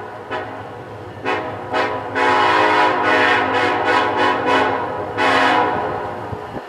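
Locomotive air horn of Norfolk Southern heritage unit NS 1071, an EMD SD70ACe, played as a horn show: a few short toots, then a long blast broken by several quick stuttering pulses, and one more short blast near the end, over the low rumble of the passing train.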